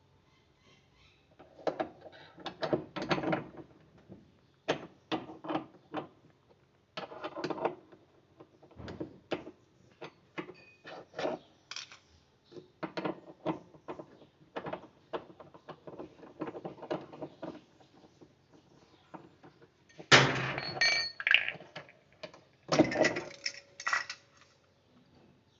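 Irregular clinks, knocks and rattles of tools and metal parts being handled while a washing machine's mechanism base is taken apart. The loudest metallic clanks come about 20 and 23 seconds in, a couple of them ringing briefly.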